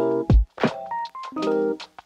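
Background music: electric-piano or keyboard chords with a short melody over a steady beat, with a deep kick drum and crisp snare or hi-hat hits.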